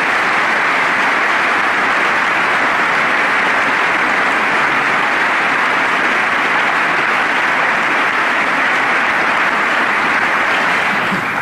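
Large audience applauding steadily, dying away just before the end.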